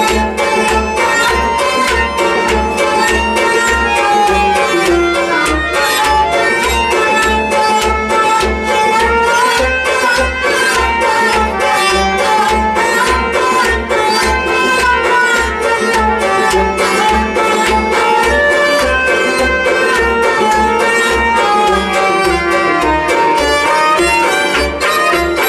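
Instrumental passage of Kashmiri Sufi folk music: a bowed sarangi plays a winding melody over a steady low drum beat of about two beats a second.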